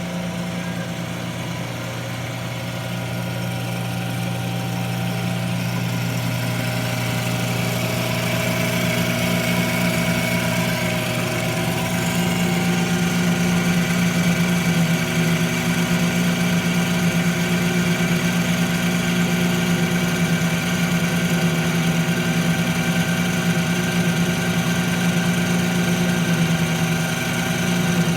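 Metal lathe running steadily: a continuous machine hum with a higher whine from its drive. It grows a little louder over the first dozen seconds.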